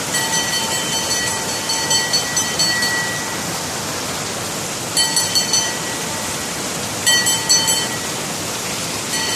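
Heavy rain pouring down in a steady hiss, with a street vendor's handbell ringing in rapid shaken bursts three times: a long one at the start, then two short ones about five and seven seconds in.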